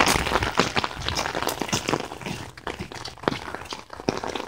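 Footsteps crunching and splashing on a wet gravel path, irregular taps with clothing rustle.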